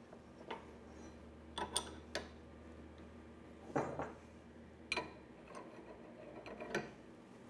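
About half a dozen faint metallic clicks and clinks of open-end wrenches on a CNC router's spindle shaft and collet nut as a 60-degree V-bit is tightened in its collet. A faint low hum runs beneath and stops about five seconds in.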